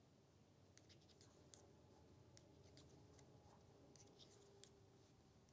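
Faint, scattered light clicks of metal circular knitting needles as stitches are purled, over near silence.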